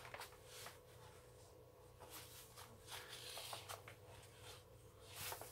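Faint rustling of the thin plastic cover film as it is peeled slowly back off a diamond painting canvas, with a few soft ticks and crinkles.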